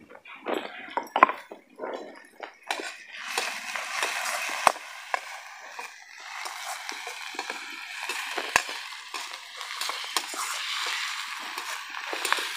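A metal slotted ladle scraping and clinking in a steel kadai as onions are stirred over a wood fire, with a few sharp knocks of the ladle against the pan. From about three seconds in, frying onions sizzle steadily in the oil.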